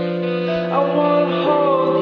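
Background music: a song's instrumental passage with held chords and a melody line that moves to new notes partway through.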